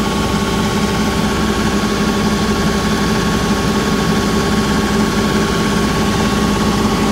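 Tractor's diesel engine running steadily while it does an exhaust-filter regeneration, burning off built-up soot.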